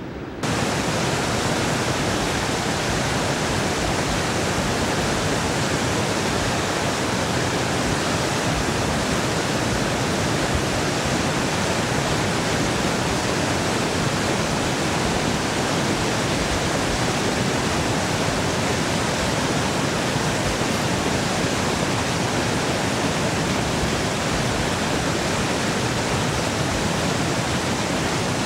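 Loud, steady rush of whitewater pouring out of a dam's outflow gates and churning down the river below. It comes in at full level suddenly about half a second in.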